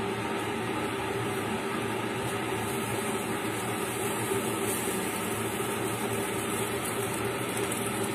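Steady machine-like hum with a hiss, even and unchanging throughout.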